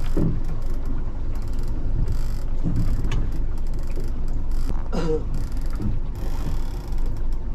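Heavy fishing reel clicking as line is worked on a big hooked bluefin tuna, over the steady low run of the boat's engine.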